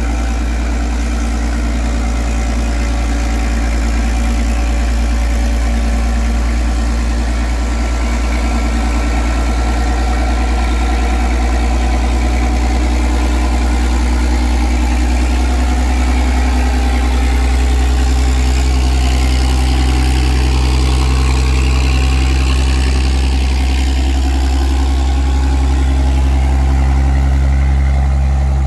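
Toyota forklift's engine running steadily while it carries a load, growing a little louder about two-thirds of the way through.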